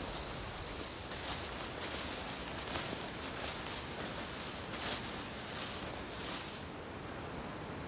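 Irregular rustling and crackling in dry leaves and brush, a string of short crunches that stops about seven seconds in.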